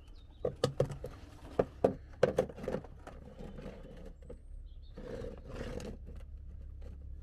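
Handling noises from working on the car: a run of sharp clicks and knocks in the first three seconds, then a short scraping or rustling noise about five seconds in, over a low steady hum.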